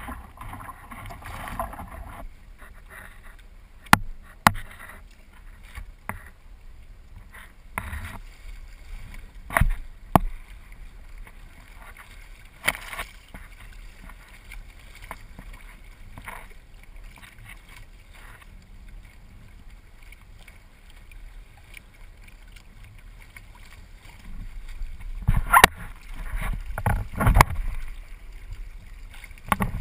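Water slapping and sloshing against a sail kayak's hull right at the waterline, with sharp splashes every few seconds and a louder run of splashes near the end as the boat pushes through chop.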